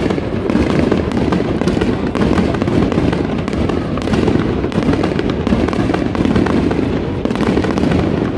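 Fireworks going off in a dense, continuous barrage: many overlapping bursts and crackles with no pause between them.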